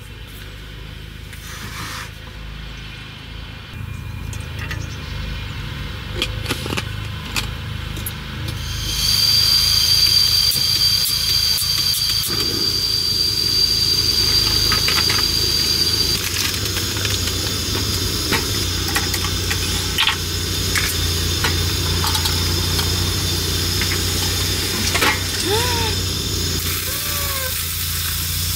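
Camp gas stove lit about nine seconds in and burning with a steady hiss under a pot of milk, with a few small clicks of utensils and handling. Near the end the hiss grows as the milk comes up to the boil.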